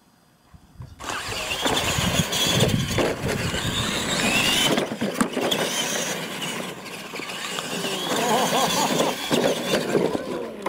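Two electric R/C monster trucks launching and racing on a dirt track. Their motors whine, rising and falling with the throttle, and their tires scrabble on loose dirt. The sound cuts in about a second in.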